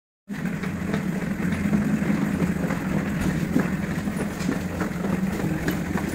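A vehicle's engine running steadily, heard from inside, with a low rumble and small rattles and clicks. It cuts in suddenly just after the start.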